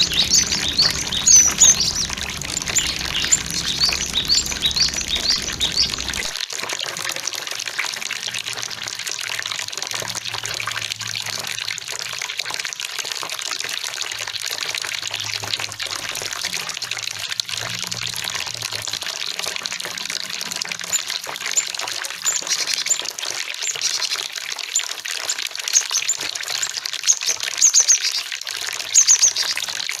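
Cinereous tit calling in runs of quick, high chirps during the first few seconds and again through the last several seconds, over the steady rush of flowing water.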